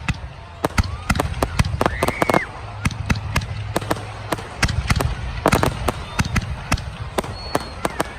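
Fireworks display: a rapid series of sharp bangs and crackling bursts, with a short whistle about two seconds in and a dense crackle cluster a little past halfway.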